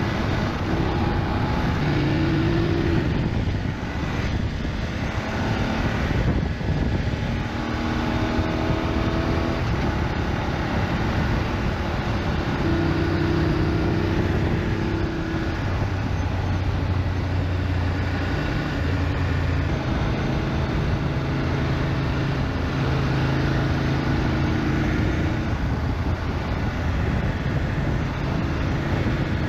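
BMW GS motorcycle being ridden, its engine running steadily under a constant hiss of road and rushing-air noise.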